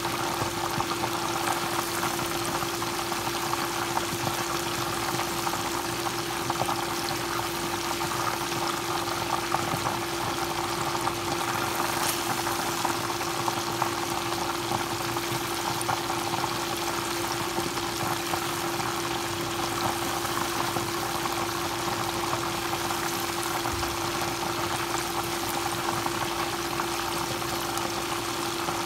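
Karaage (Japanese fried chicken) deep-frying in hot oil: a steady, dense sizzle and crackle of bubbling oil, with a steady hum underneath.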